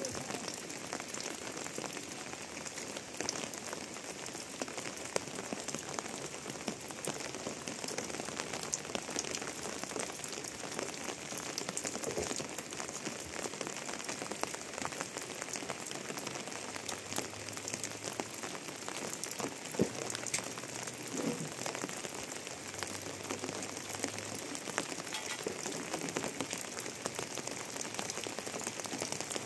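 Steady rain falling, with many individual drops ticking throughout.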